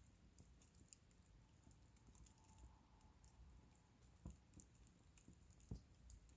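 Wood bonfire crackling faintly, with scattered light ticks and two sharper pops near the end.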